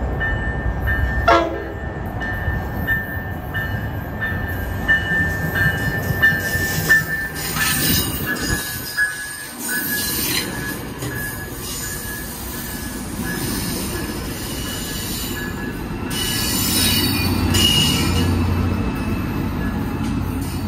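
Tri-Rail push-pull commuter train pulling into a station and rolling past close by, bilevel cars first and the diesel locomotive last. A high repeating tone and squealing run through the first half, with a few sharp clanks in the middle. The diesel locomotive's low engine rumble grows louder from about three quarters of the way in.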